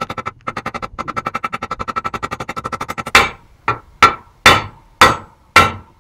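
Hammer blows on a steel spacer, driving a new front wheel bearing into the steering knuckle. First comes a fast run of light, ringing taps, about ten a second. From about three seconds in, heavier single blows land roughly twice a second.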